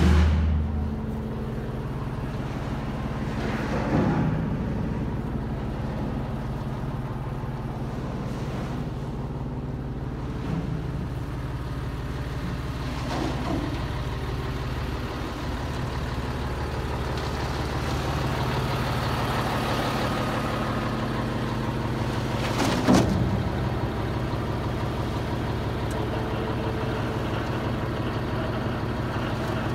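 Scania T113 concrete mixer truck's 11-litre straight-six diesel idling steadily, with a few knocks and clanks, the loudest about 23 seconds in.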